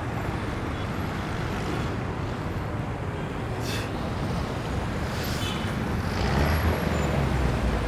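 Road traffic noise, a steady low rumble, swelling louder about six seconds in as a vehicle passes close by.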